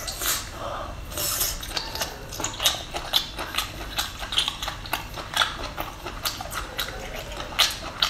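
Close-miked mouth sounds of chewing saucy skewered seafood: a steady run of wet clicks and smacks, several a second.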